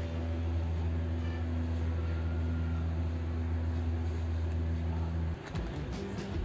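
A steady low hum that cuts off suddenly about five seconds in.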